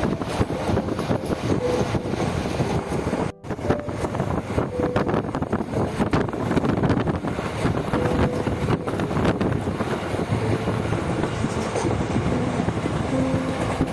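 Passenger train running, a steady rumble with rapid clattering and wind buffeting the microphone; the sound cuts out for a split second a little over three seconds in.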